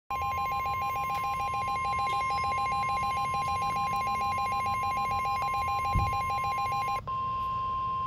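Midland NOAA Weather Radio sounding its severe thunderstorm warning alert: a rapid pulsing beep over a steady high warning tone. The beeping cuts off about seven seconds in while the steady tone carries on.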